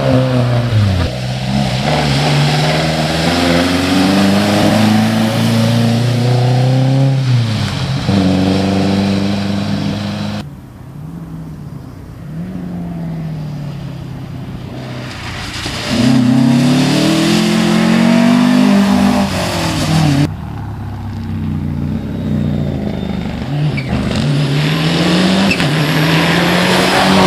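Rally car engines revving hard and changing up through the gears as the cars go past one after another. The sound changes abruptly about ten and twenty seconds in as one car gives way to the next, with a quieter stretch between about ten and fifteen seconds. A Peugeot 106 is heard at the start and a Mitsubishi Lancer Evolution near the end.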